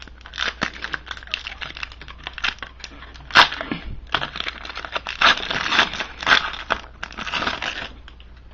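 Foil trading-card pack wrapper crinkling and tearing as a pack of hockey cards is opened and the cards handled, a dense run of irregular crackles with a sharp snap about three and a half seconds in.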